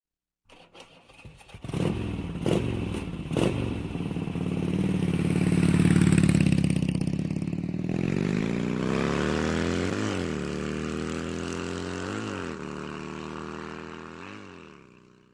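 A motorcycle engine starts after a few clicks and runs, building up. Its pitch then climbs as it revs, with three quick rev blips near the end before it fades away.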